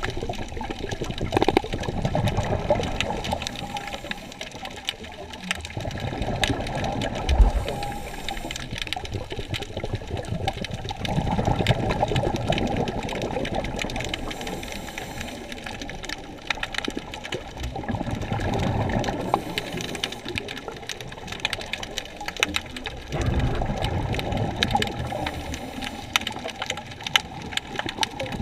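Underwater sound picked up by a camera in the sea: rushing water that swells and fades every five or so seconds, with a steady crackle of small clicks over it.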